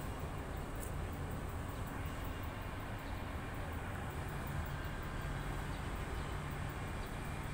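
Steady low background rumble with a faint hum, and a single small click about a second in.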